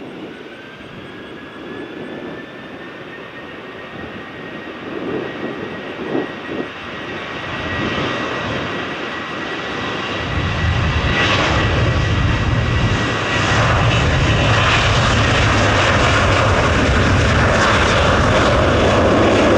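Jet airliner's engines: a high whine that builds, then a loud, steady rumble coming in about halfway through and growing louder.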